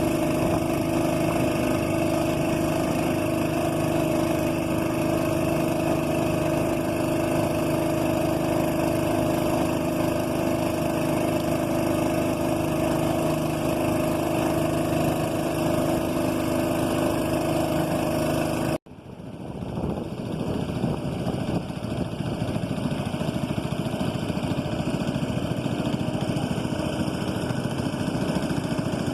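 Boat engine running steadily at a constant pitch. About two-thirds of the way through, the sound cuts off abruptly and comes back as a rougher, noisier engine sound that builds up to full level over a couple of seconds.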